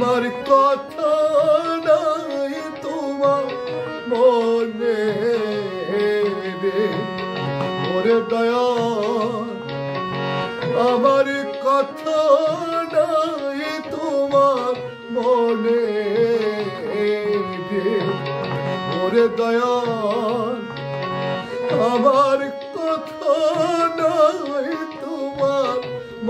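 Man singing a Baul devotional song in Bengali to his own harmonium accompaniment, the voice sliding through long ornamented lines over the harmonium's held chords, with a hand drum keeping a steady rhythm.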